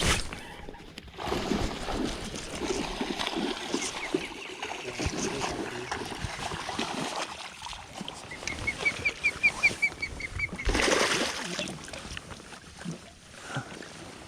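Water splashing and sloshing, with irregular slaps, as a hooked largemouth bass thrashes at the surface near the boat. Partway through, a bird calls a quick, even run of about ten chirps.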